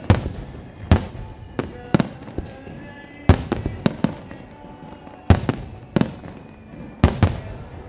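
Starmine fireworks barrage: a rapid series of shells bursting, a dozen or more sharp bangs in quick clusters, each trailing off in reverberation.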